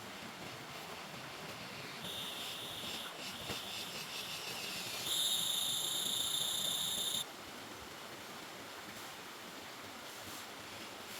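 Steady rush of flowing river water. A high, steady whistling tone joins it about two seconds in, grows louder about five seconds in, and cuts off suddenly a couple of seconds later.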